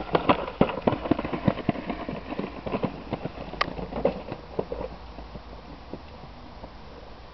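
Stones rattling and knocking in a child's red plastic toy wheelbarrow as it is pushed over bumpy ground: a rapid, uneven clatter that thins out after about five seconds.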